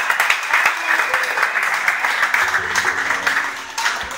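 Audience applauding, a dense clapping of many hands. Faint music with low sustained notes comes in underneath about two and a half seconds in.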